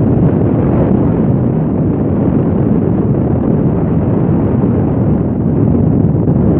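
Strong wind buffeting the microphone, a loud steady low rumble.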